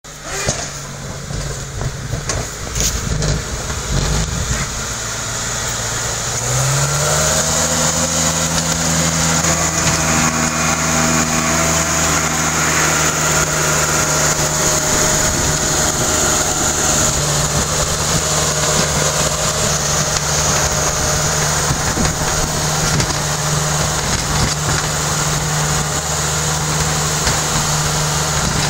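Suzuki Samurai's engine running while the vehicle pushes a front-mounted snow plow; its pitch rises about six or seven seconds in and then holds steady.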